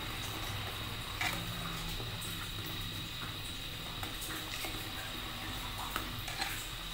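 Metal ladle stirring a thick pumpkin-and-milk drink as it simmers in a stainless steel pot, with a few light clinks of the ladle against the pot, one about a second in and two near the end.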